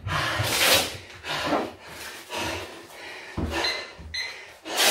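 A man breathing hard in heavy puffs and gasps, winded after a minute of punching combinations, with a sharp click near the end.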